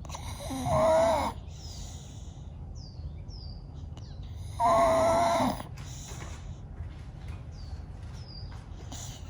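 Staffordshire bull terrier snoring in her sleep: two loud snores about four seconds apart, each lasting about a second.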